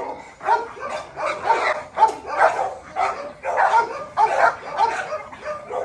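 Pit bulls barking aggressively at each other while straining on their leashes, a rapid, steady run of barks about two to three a second.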